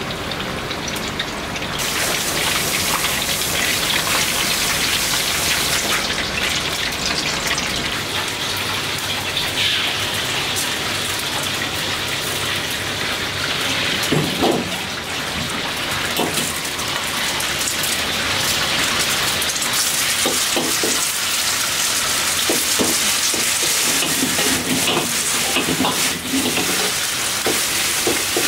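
Hot oil sizzling and crackling in a wok as battered chicken deep-fries, growing louder about two seconds in. Later, egg and rice stir-fry in a hot wok, sizzling, with a metal ladle knocking and scraping against it.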